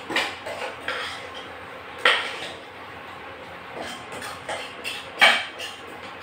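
Metal spoon scraping and clinking against a metal saucepan while thick chicken curry is stirred, in irregular strokes. The loudest knocks come about two seconds in and about five seconds in.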